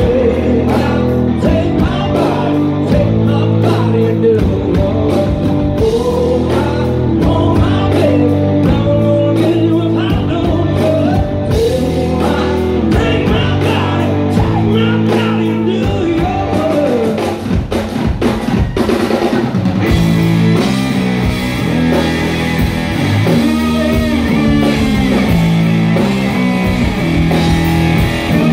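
Rock band playing live, loud and dense: electric guitar, bass and drum kit. The music thins briefly about 17 seconds in, then comes back fuller.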